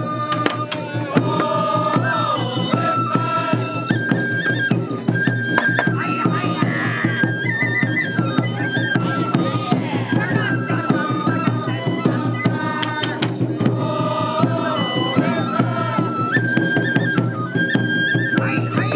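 Live shishimai festival music: a Japanese bamboo flute plays a held, stepwise melody over steady taiko drumming.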